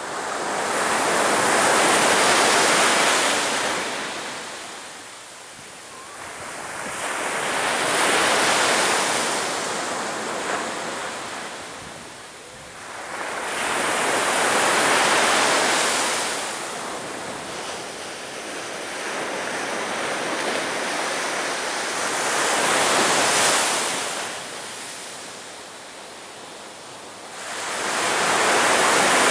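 Sea surf breaking on a beach, the wash of each wave swelling and fading in turn, five waves about six to seven seconds apart.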